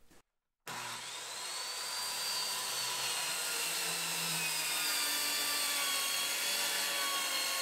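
Corded circular saw running and cutting through 3/4-inch plywood, trimming the sheet's cut edge straight. The motor whine starts suddenly under a second in, climbs briefly, then holds steady and sags slightly in pitch as the blade works through the wood.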